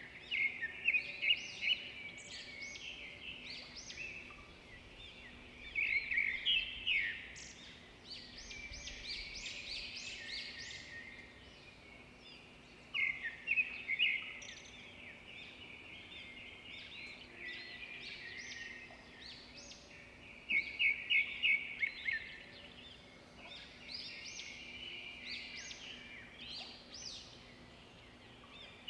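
Birds chirping and twittering in clusters of short high notes, the busiest bursts coming back roughly every seven seconds, over a faint steady low hum.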